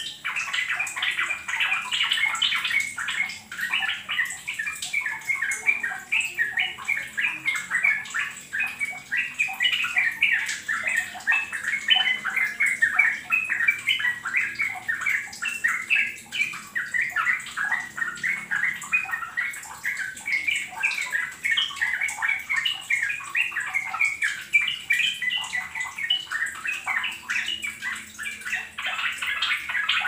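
Yellow-vented bulbuls (trucukan) singing: a continuous, busy stream of quick bubbly chattering notes with no pause, the kind of recording played as a lure to set a pet trucukan singing.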